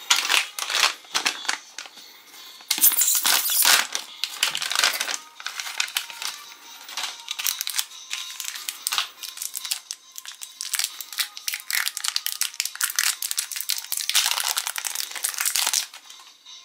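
Foil blind-bag wrapper crinkling and rustling in the hands as it is opened and handled, with faint background music underneath.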